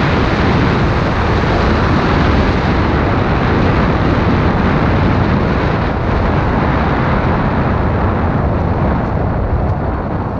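Kawasaki Ninja sport motorcycle riding at steady speed, its engine running under heavy wind rush on the microphone. The sound dips slightly near the end.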